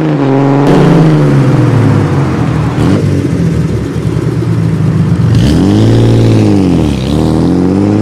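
A car engine, laid over the picture as a sound effect, runs at a steady speed, revs up and back down a little past the middle, then climbs again near the end. There are two short clicks in the first three seconds.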